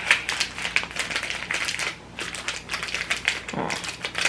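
A seasoning-powder sachet being shaken and tapped out over the noodles: a fast, irregular crinkling and clicking, with a short lull about halfway through.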